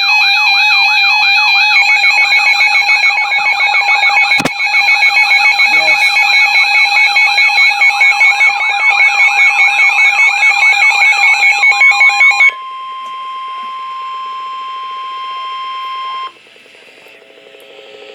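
Emergency weather alert tones: a loud electronic warble sweeping rapidly up and down over steady beeping tones, which cuts off abruptly about twelve seconds in. A single steady attention tone, typical of the weather radio warning alarm, then holds for about four seconds before it drops to fainter steady tones.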